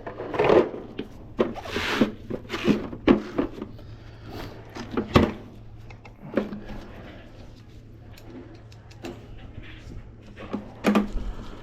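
Scattered knocks, clicks and scraping as a Go Chair power wheelchair's parts are handled and fitted back together, the loudest knocks in the first half and again near the end.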